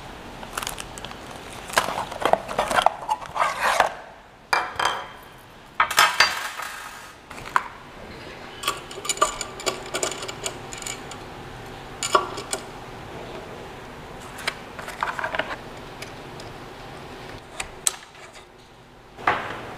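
Hand assembly of a 3D printer: small metal parts and tools clinking and tapping at irregular intervals, with short stretches of rustling from the parts bags and packaging.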